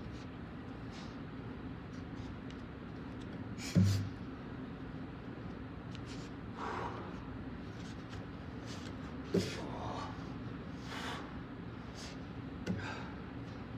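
Three dull thumps from a gymnast moving about a pommel horse, the loudest about four seconds in, with a few sharp breaths in between. A steady low hum runs underneath.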